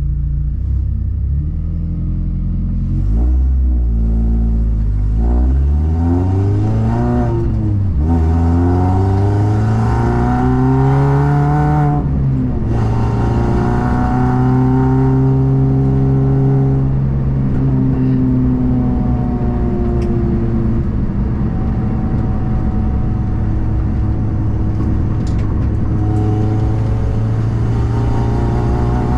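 Car engine accelerating hard through the gears: the revs climb and drop back three times in the first dozen seconds, then hold at a nearly steady pitch.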